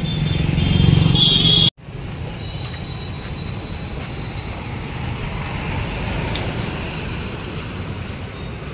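A motor vehicle engine running close and loud, cut off abruptly less than two seconds in, then steady street traffic noise.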